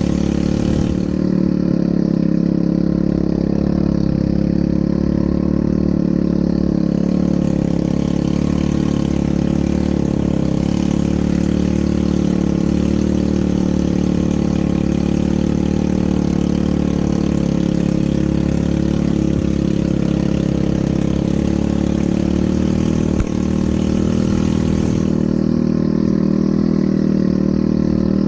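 ATV engine running at a steady pace, with one brief knock late on.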